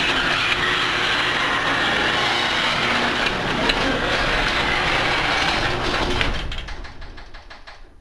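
Garage door opener running as it raises the door: a loud, steady mechanical noise. About six seconds in it winds down through a fading run of rapid clicks as the opener stops.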